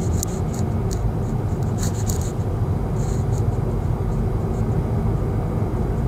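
Steady low road and engine rumble inside the cabin of a moving Kia Seltos. A few short, faint high clicks come in the first half.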